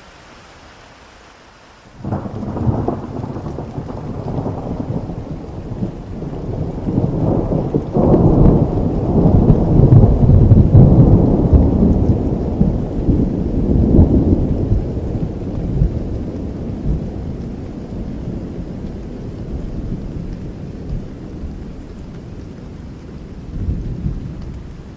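Steady rain falling. About two seconds in, thunder breaks into a long low rumble that builds and peaks in the middle, then slowly dies away, with a smaller swell near the end.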